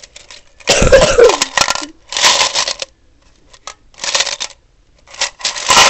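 Coins rattling inside a tin can savings bank, in four bursts. The first burst lasts about a second and is the loudest; the others are shorter.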